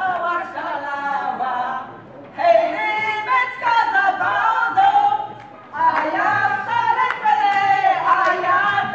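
Three women singing together unaccompanied, in three sung phrases with short breaks a little after two seconds and around five and a half seconds in.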